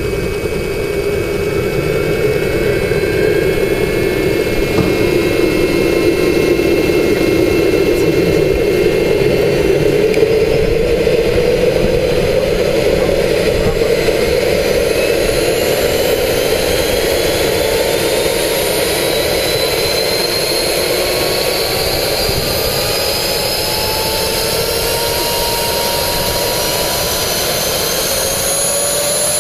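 JetCat P80 Kerostart model jet turbine starting up on kerosene: a steady rushing noise with a constant high whine, then, from about halfway through, a whine that rises steadily in pitch as the turbine spools up.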